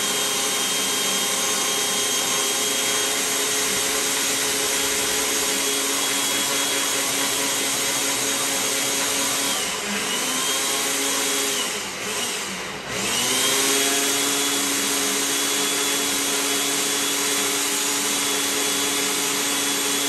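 Personal bullet-style blender motor running at high speed, blending chopped seasonings and olive oil. It runs steadily except twice, about ten seconds in and again around twelve to thirteen seconds, when the whine drops in pitch and then climbs back to full speed.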